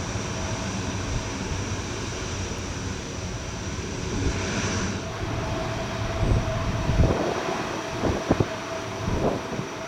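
C-130T Hercules turboprop engines running with a steady high whine over a low rumble. Gusts of wind buffet the microphone in the second half.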